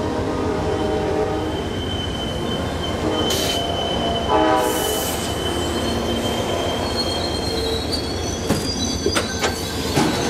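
Amtrak Silver Meteor's stainless-steel passenger coaches rolling slowly past as the train arrives, wheels squealing in thin, high, steady tones. A horn sounds briefly about four seconds in, and the wheels clack over rail joints near the end.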